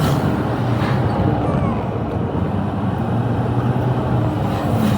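Car driving along a road: a steady rumble of engine and tyre noise.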